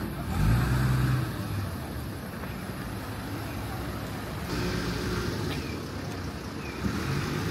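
City street traffic: a motor vehicle's engine passes close by about half a second in, the loudest sound, then steady road noise continues, with a couple of short high chirps near the end.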